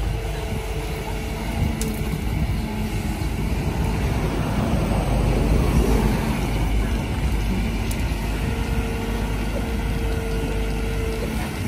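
Kobelco SK200 hydraulic excavator running under load as it digs its bucket through wet mud, the engine working steadily and a little louder around the middle.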